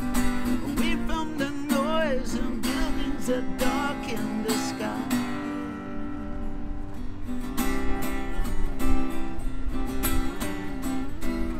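Solo acoustic guitar strummed in a steady rhythm: an instrumental break between sung verses.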